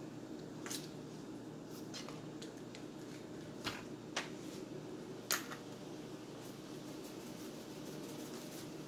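Thick tomato meat sauce simmering in a skillet, with soft squishy pops and a handful of light clicks and taps, the loudest about five seconds in; a wooden spoon stirs it at first. A steady low hum runs underneath.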